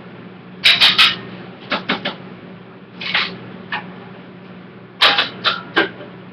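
Sharp clattering knocks of metal cookware and utensils, in several quick clusters, over a steady low hum.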